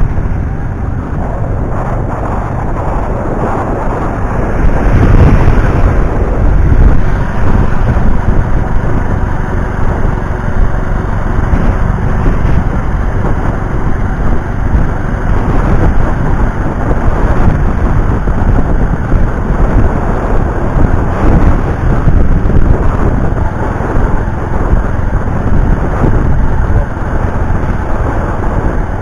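Loud, steady rumble of wind on the microphone and road noise from a moving vehicle, swelling louder about five seconds in.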